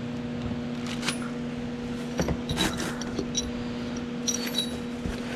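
Light clinks and rustling as small loose parts are handled and set down, a few sharp metallic ticks in the second half, over a steady low hum.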